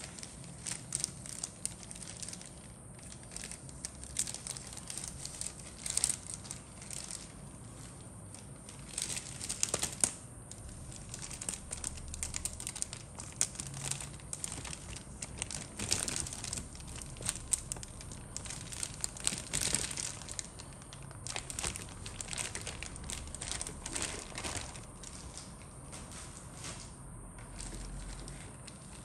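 Crinkling plastic packaging as plastic model-kit sprues are handled: irregular crackles with a few sharper clicks.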